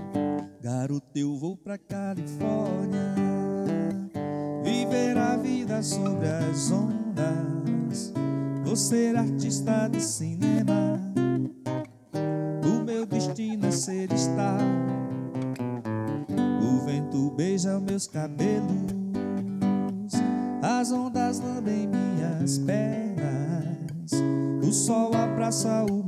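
Nylon-string classical guitar strummed and picked through an MPB song, chords changing over a steady beat.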